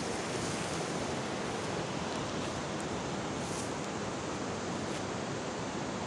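A steady, even rushing noise with nothing standing out of it.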